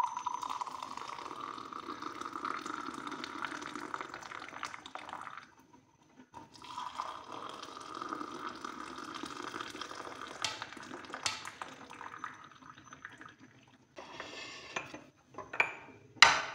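Tea poured from a pan through a strainer into two glass tumblers: two steady pours of about five seconds each with a short break between, with a couple of light clinks. A sharp knock near the end.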